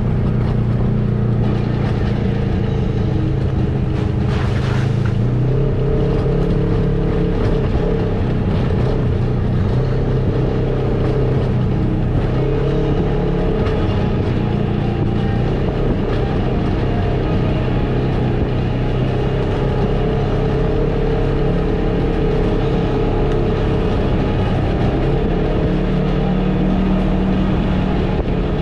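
Polaris RZR side-by-side's engine running steadily at trail-riding speed, its pitch shifting slightly up and down, with a brief hiss about four seconds in.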